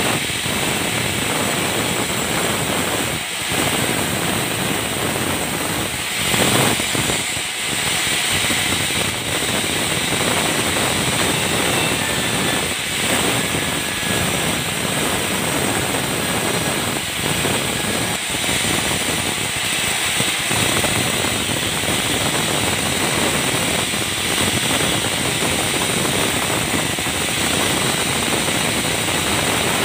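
Sawmill band saw running and ripping a balsa log lengthwise into slabs, a loud, steady mechanical noise.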